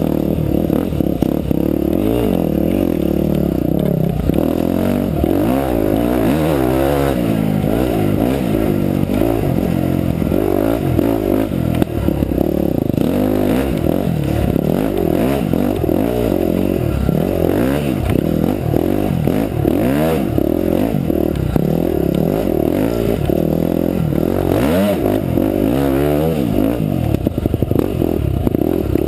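Enduro motorcycle engine running hard under the rider's throttle, its pitch rising and falling over and over as it revs up and drops back, with a few sharp knocks and clatters.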